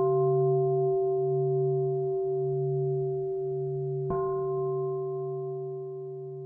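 A struck singing bowl ringing with several steady tones over a low hum that wavers slowly; it is struck again about four seconds in, and the ring slowly fades.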